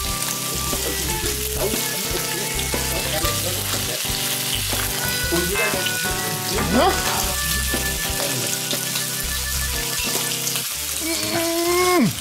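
Bacon sizzling on a hot steel fire-plate griddle, under background music with a steady bass line and a few sliding notes.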